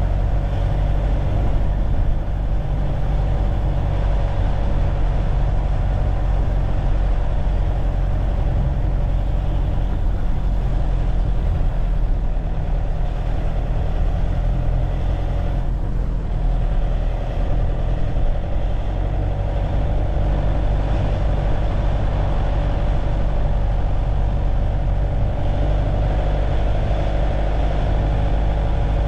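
A car being driven: steady engine and road rumble.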